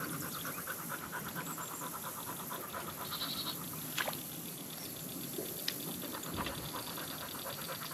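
A wild animal chorus calling in a rapid, even pulse of about eight pulses a second over a steady high hiss. Two sharp clicks cut through it, about four and five and a half seconds in.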